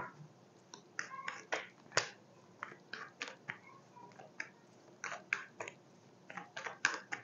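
Tarot cards being shuffled by hand: a quiet, irregular string of short card snaps and flicks, about two or three a second.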